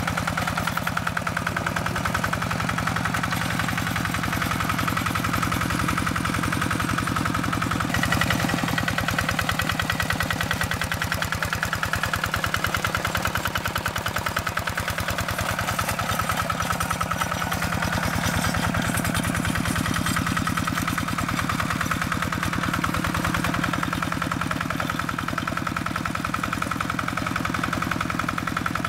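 Quick Impala two-wheel walk-behind tractor's single-cylinder diesel engine running steadily with a fast, even beat while the tractor works under load.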